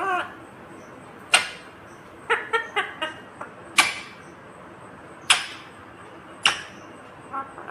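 Indian ringneck parakeet giving short, sharp calls, mostly single calls a second or more apart, with a quick run of about four a third of the way in.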